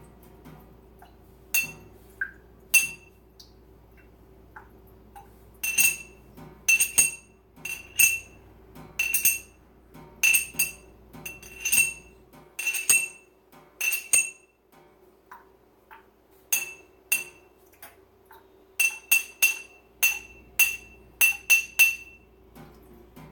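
Repeated glassy clinks, each ringing briefly at the same high pitch, coming singly and in quick runs of two or three.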